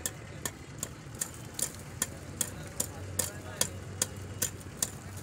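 Metal hammer tapping the back of a knife blade set into a block of ice, splitting it: sharp, evenly paced strikes about two and a half a second, over a steady low hum.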